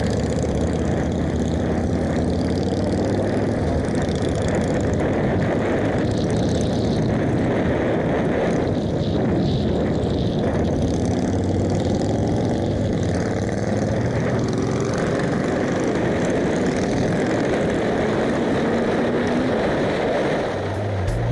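Motorcycle engine running under way, heard from a helmet-mounted camera along with wind rush, its pitch rising and falling with the throttle and gear changes.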